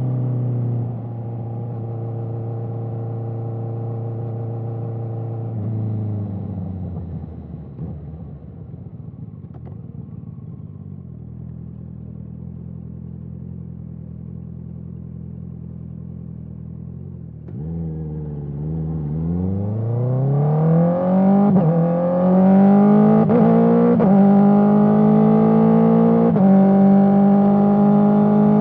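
Honda CBR650R's inline-four engine through an Akrapovic exhaust: it runs steady, drops in pitch as the bike slows, and holds a low steady note through the middle. A little past halfway it accelerates hard through several quick-shifter upshifts, each a rising sweep cut by a brief dip in pitch, and settles at a steady higher note near the end.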